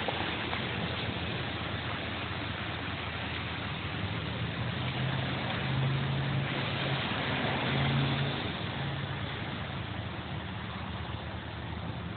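Street traffic: cars running and passing, a steady hiss under a low engine hum that swells about six seconds in and again about eight seconds in.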